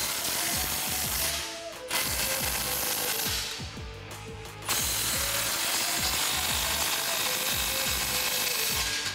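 Cordless ratchet running in three bursts as it tightens exhaust clamp bolts on a stainless steel cat-back exhaust. The motor whirs and the mechanism clatters, with two short runs early on and a longer run of about four seconds to finish.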